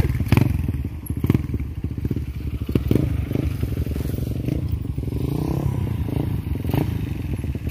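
High-compression Suzuki Raider R150 underbone motorcycle's single-cylinder four-stroke engine running at low revs while ridden slowly, with one short rev about halfway through and light crackling.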